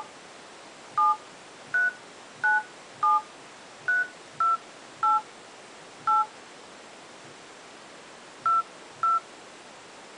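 Touch-tone (DTMF) keypad beeps from an HTC HD2's Android dialer as a phone number is keyed in: about ten short two-tone beeps at uneven spacing, with a pause of about two seconds before the last two.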